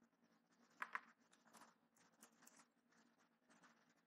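Two quick clicks at the computer about a second in, from the mouse or keys used to copy and paste a command; otherwise near silence with faint hiss.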